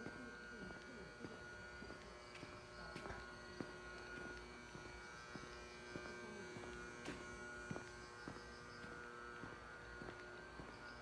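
Footsteps at a steady walking pace, faint, over a steady electrical hum.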